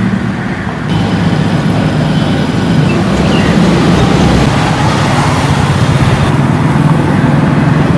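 Steady rumble of road traffic passing close by, engines and tyres running continuously.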